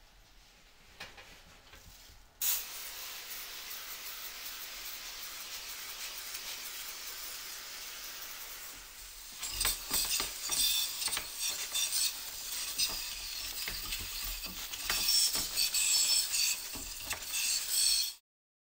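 Liquid being sprayed during air-conditioner cleaning: a steady hiss starts suddenly about two seconds in, then turns louder and uneven with crackling and small clicks from about halfway, and cuts off sharply near the end.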